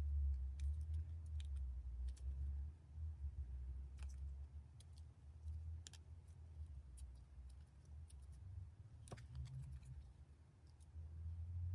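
Faint scattered clicks and light taps from hands handling small ribbon-wrapped hairpins and setting one down, over a low rumble of handling noise. The sharpest click comes about nine seconds in.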